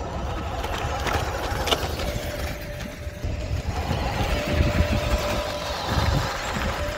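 1:16 scale RC Western Star 49X dump truck driving over loose gravel: a thin, steady motor whine comes and goes three times, over a low rumble and crunching of the tyres on stones.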